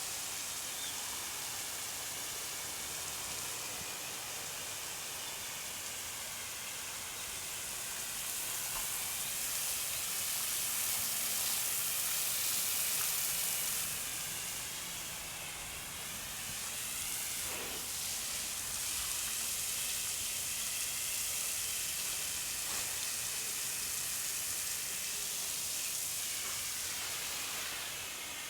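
Garden hose spraying water: a steady hiss that swells louder for several seconds at a time, about a third of the way in and again in the second half, as the spray shifts.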